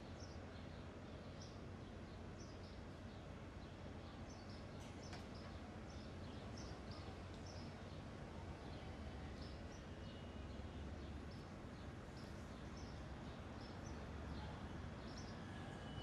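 Faint outdoor ambience: small birds chirping in short, repeated high calls over a steady low hum.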